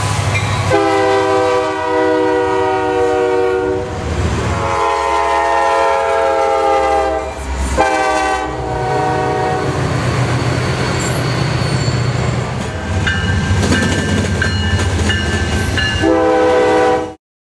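Freight locomotive air horn sounding two long blasts, followed by the rumble of the passing train, then another short horn blast before the sound cuts off suddenly.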